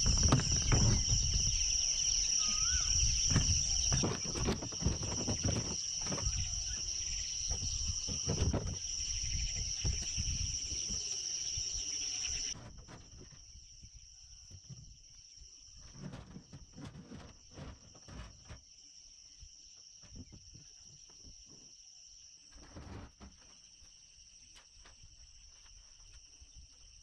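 Steady high-pitched insect chorus, with scattered knocks and bumps of a plastic boat and gear being handled and unloaded from a pickup truck bed. Everything drops sharply in level about halfway through.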